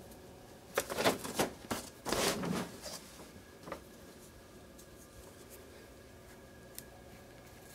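Rustling and clicking of small parts handled close to the microphone: a tiny drone motor and its thin wires being worked by hand. The noises come between about one and three seconds in, followed by a single faint click.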